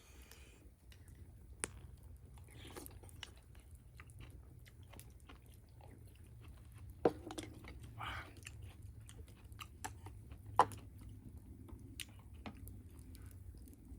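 A person chewing and eating close to the microphone, with scattered sharp clicks; three louder ones come about 2, 7 and 10.5 seconds in.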